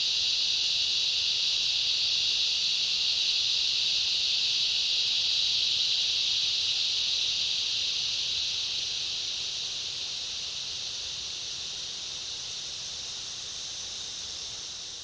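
Cicada chorus: a continuous high-pitched buzzing drone that holds steady, then slowly fades over the second half.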